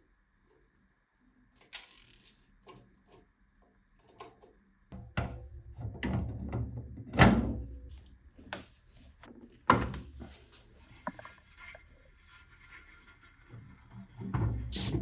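A run of irregular knocks, clicks and thunks from objects being handled, with two sharp impacts about seven and ten seconds in and a heavier thud near the end.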